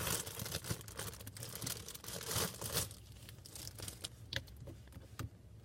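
Slime being handled and squished by hand, giving wet crackling and crinkling noises with many small clicks. It is busiest for the first few seconds, then thins to a few scattered clicks.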